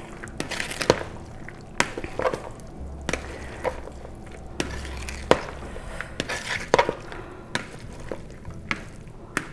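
Metal spoon stirring a chunky tofu, corn and quinoa mix in a plastic mixing bowl: irregular clicks and knocks of the spoon against the bowl, one or two a second.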